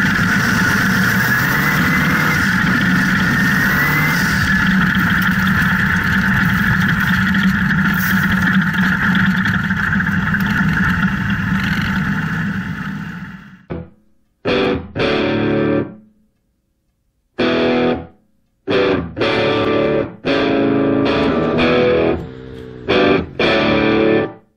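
Off-road buggy engine and tyre noise from inside the open cockpit at a steady pace, fading out about halfway through. Then distorted electric guitar music in short bursts of chords separated by gaps of silence.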